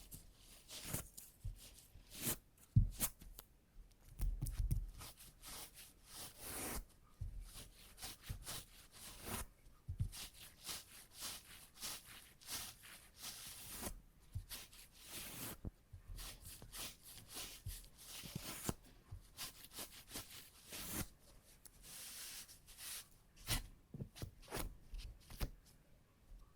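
Sticky adhesive tape, from a lint roller or tape cleaner, pressed onto fabric trousers and peeled off to lift embedded cat hair. It gives irregular crackling, tearing strokes, with a few soft knocks from handling about three and four and a half seconds in.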